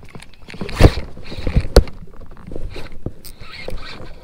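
Irregular knocks and handling noise while a fish is reeled in from a kayak with a baitcasting reel, with two sharp knocks about a second apart near the start.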